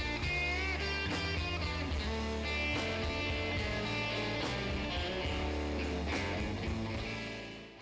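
Background music: a surf-style electric guitar instrumental over a steady bass line, fading out near the end.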